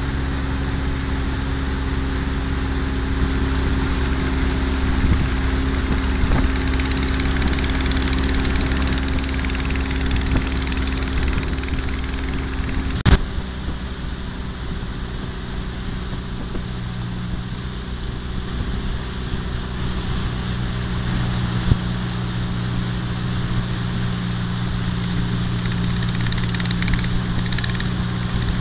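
Boat engine running steadily, with rushing water and wind over it. About halfway through there is a sharp click, after which the engine note changes and runs a little quieter.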